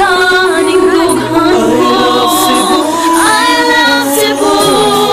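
Background music: a Cebuano-language song with a sung, partly female, vocal line over its accompaniment.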